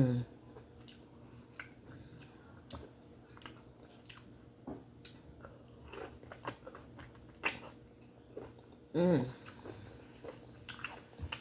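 Close-up mouth sounds of someone chewing steamed conch: scattered wet clicks and smacks of biting and chewing. A short hummed "mm" comes about nine seconds in.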